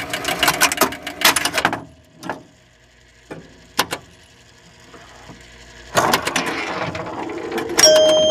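Mechanical clicking and clattering: a fast run of clicks, a few single clicks, then a denser rattle that ends with a ringing, chime-like tone.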